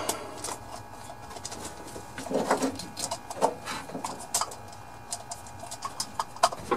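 Irregular sharp clicks and plastic rattles of a distributor cap and its spark plug leads being handled and snapped back onto the distributor of a Suzuki Carry mini truck engine.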